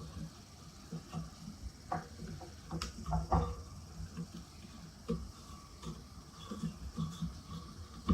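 Table fan's plastic cover and parts being handled and fitted back together: scattered light clicks and knocks, with a cluster of louder knocks about three seconds in.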